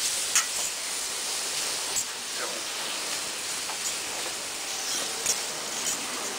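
Steak sizzling in a hot pan: a steady frying hiss, with a few light clicks of utensils.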